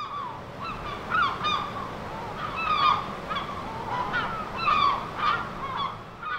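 A flock of geese honking, many short calls overlapping and repeating through the whole stretch.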